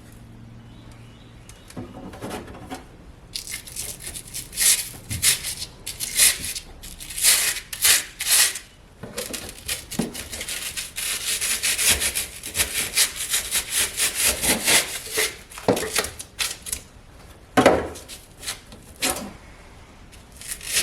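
Wood scraping and rubbing in irregular strokes as old wood paneling is worked loose by hand. The strokes thicken into a near-continuous scraping in the middle.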